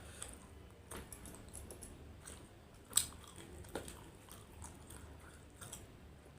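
A person chewing and biting food close to the microphone, with scattered wet mouth clicks; the sharpest click comes about three seconds in.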